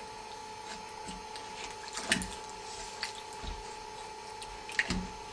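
Wooden spoon stirring a wet, soupy mixture in a metal pot, with short scrapes or knocks against the pot about two seconds in and again near the end. A steady hum runs underneath.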